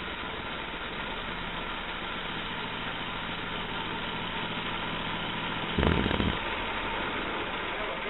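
Homemade band sawmill cutting a slab from a log: its 11-horsepower gas engine runs steadily under load as the band blade saws through the wood. A brief louder bump about six seconds in.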